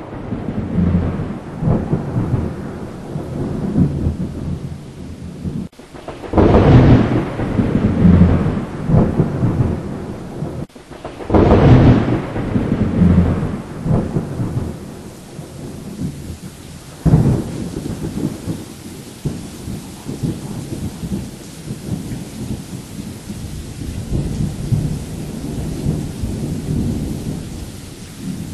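Thunderstorm: thunder rumbling over steady rain, with two loud crashes of thunder about six and eleven seconds in and a sudden sharp crack at about seventeen seconds.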